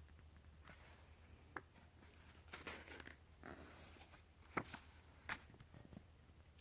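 Faint rustling of coloring-book paper pages being handled and turned, with a few light clicks.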